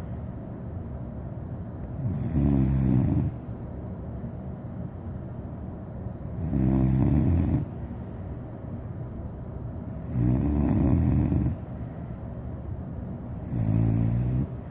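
Cane corso puppy snoring in its sleep: four snores, each about a second long, coming every three and a half to four seconds.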